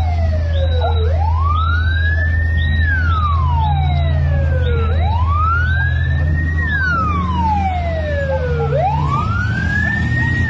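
Emergency vehicle siren wailing, rising over about a second and a half and falling over about two seconds, repeating about every four seconds. A fainter second siren sweeps more quickly higher up, over a steady low hum.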